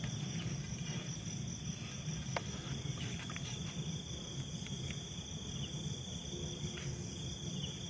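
Steady chorus of night insects, a constant high-pitched trill, over a low rumble and a few faint clicks.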